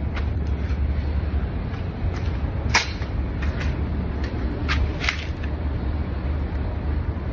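A steady low rumble with a few sharp clicks, about three and five seconds in.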